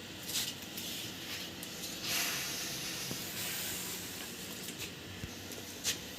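Steady hiss of cooking on a stove, with louder surges of hissing about half a second in and from about two seconds to three and a half, and a sharp click near the end.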